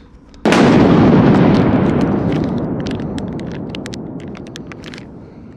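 Explosion sound effect: a sudden loud boom about half a second in, its rumble fading away over several seconds under scattered sharp crackles.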